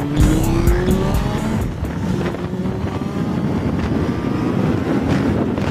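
Suzuki GSF600 Bandit's inline-four engine running under load on the road, its pitch rising as the motorcycle accelerates, over a haze of wind and road noise.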